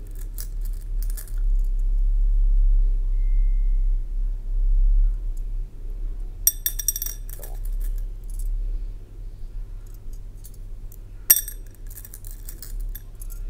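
Beads clinking against a glass bowl as fingers pick through them, in a few scattered clusters of small clicks. The sharpest clinks come about six and a half and eleven seconds in, over a steady low hum.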